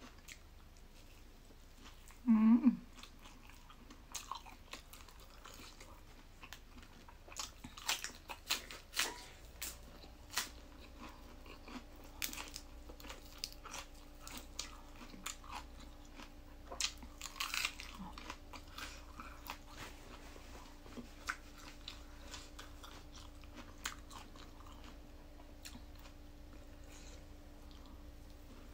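Close-up mouth sounds of biting and chewing soft mock chicken made from tofu: wet smacks and clicks, busiest in the middle. A brief hummed voice sound comes about two and a half seconds in, and a faint steady hum sets in partway through.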